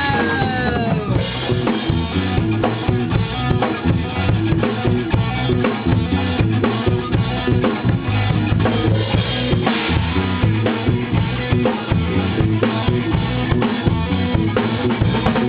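Band music without vocals, led by a drum kit with bass drum and snare hits over a steady bass line; a pitched note glides down right at the start.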